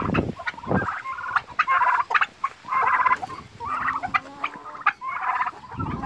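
White turkeys gobbling, one short rattling gobble after another about once a second.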